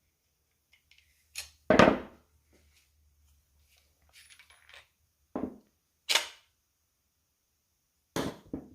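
A series of separate sharp metallic clinks and knocks from tools and die-grinder parts being handled on a workbench, the loudest about two seconds in.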